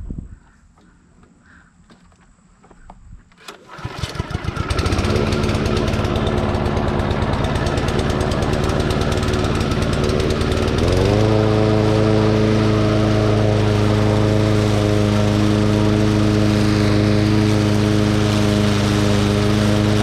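Cub Cadet SC500K lawn mower's 173cc single-cylinder engine starting about three and a half seconds in, catching almost at once and settling into a steady run. About ten seconds in, its speed steps up and it runs on evenly at the higher pitch.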